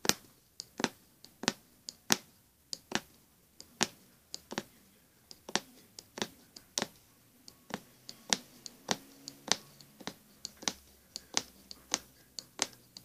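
Punch needle (aguja mágica) stabbing in and out of fabric stretched tight in a wooden embroidery hoop, making a run of sharp, uneven clicks about two to three a second as the stitches are punched.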